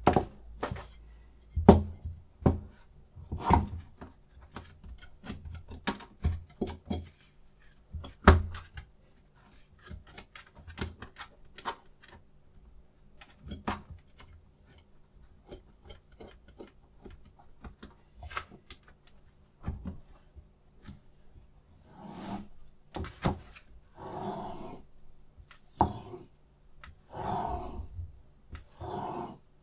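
Clicks and knocks of hard parts being handled and set down as a sharpening stone is fitted into its holder. Then, near the end, a knife blade with a clip-on angle guide is drawn across the stone in about six rasping strokes, each about a second long.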